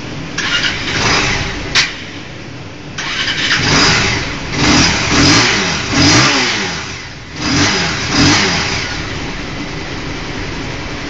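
Bajaj Pulsar 220 DTS-i's single-cylinder engine on a chassis dynamometer: a short burst of revs with a sharp click about two seconds in, then revved up and down about five times in quick succession before dropping back to a steady idle near the end.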